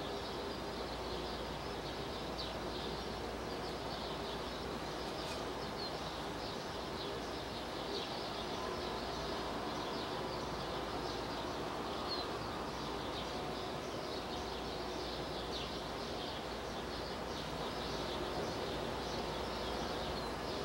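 Birds chirping, many short high calls scattered throughout, over a steady background hum of outdoor ambience.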